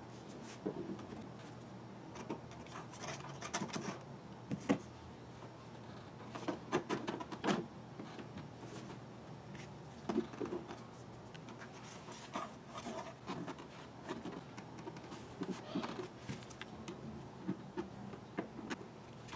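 Hand-handling noise of a thin metal airbag lid plate and a plastic dashboard: scattered light clicks, knocks and rubbing at an irregular pace, with the loudest knocks in the first half.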